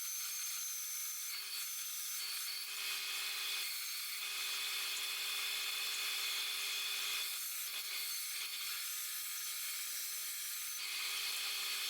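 Power sanding: a steady abrasive hiss over a constant motor tone, with brief dips in the hiss as the work is lifted and pressed again.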